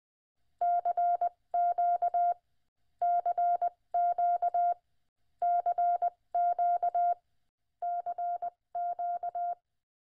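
Morse code: a single tone of about 700 Hz keyed rapidly on and off in eight short groups.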